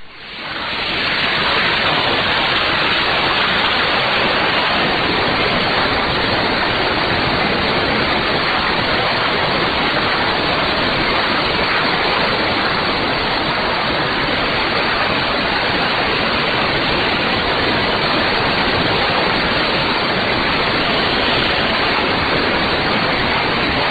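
Shortwave receiver static: an even hiss filling the receiver's audio band with the broadcast signal gone. It swells up over about the first second, then holds steady.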